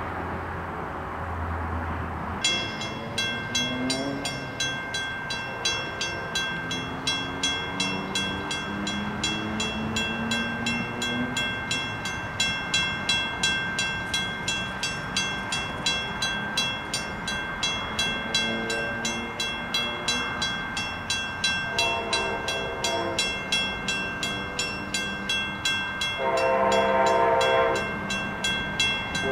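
A railroad crossing bell starts ringing about two seconds in, a rapid, regular electronic ding. An approaching diesel locomotive's chime horn sounds three times in the last third: a shorter blast, then two longer, louder blasts, as the train nears the crossing.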